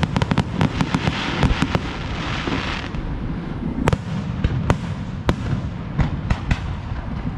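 Aerial fireworks shells bursting in quick succession: many sharp bangs, with a dense crackling hiss from about a second in to about three seconds in, then single bangs spaced a half second to a second apart.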